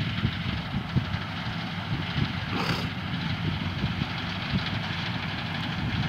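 Hira 985 combine harvester running as it cuts a crop, a steady machine noise with irregular low rumbling bumps and a brief hiss about two and a half seconds in.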